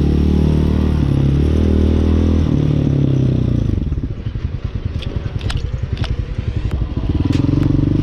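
Hawk 250 dual-sport motorcycle's single-cylinder engine running under throttle, then easing off at about four seconds in to a lower, pulsing run with a few sharp clacks, and picking up again near the end.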